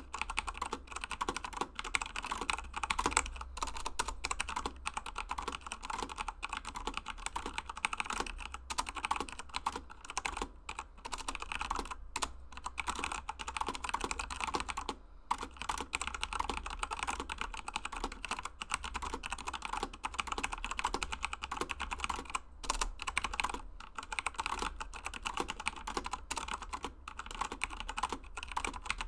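Continuous fast typing on a Corsair K95 Platinum RGB mechanical keyboard with Cherry MX Brown switches, a dense run of key clicks and keycap strikes with brief pauses.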